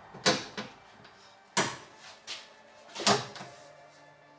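Hand blows knocking a carpeted trim panel's push-in clips home into a VW Caddy's rear door: three sharp thumps about a second and a half apart, each followed by a lighter knock.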